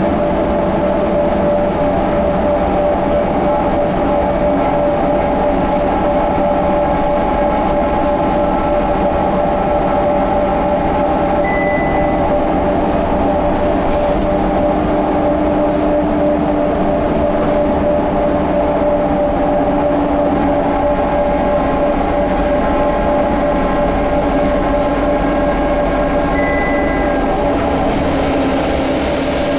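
Scania K230UB bus under way with loud, steady whines: a mid-pitched gear whine and a high whistle above it, which the uploader takes for the hub reduction axle and the turbo. The high whistle climbs sharply in pitch near the end.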